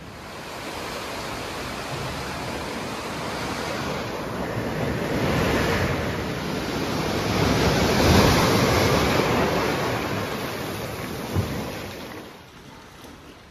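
Waves breaking and washing up the beach: a loud rush of surf that swells twice, strongest in the middle, then dies away near the end, with a single small knock shortly before it fades.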